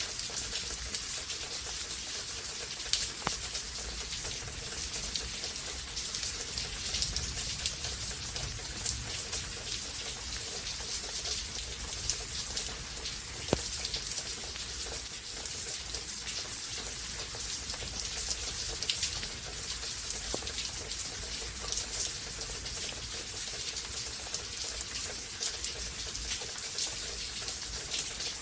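Steady rain falling, with a dense patter of individual drops and an occasional louder drip.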